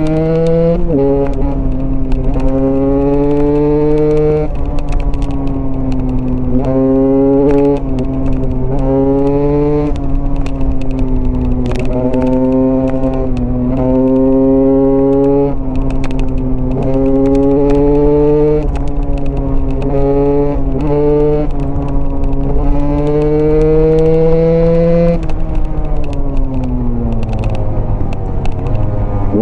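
Single-cylinder Husqvarna supermoto motorcycle engine being ridden hard, its note climbing steeply and dropping back again and again as the rider winds it out, shifts and rolls off the throttle. Near the end the engine note falls away steadily as the bike slows, then starts to climb again.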